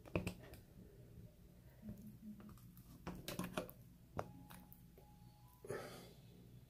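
Faint scattered clicks and light handling noises as a part is fitted back onto a Kamisori-style shavette razor.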